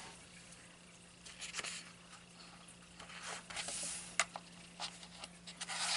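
Paper pages of a softcover colouring book being handled and turned by hand: a few soft rustles and light swishes of paper.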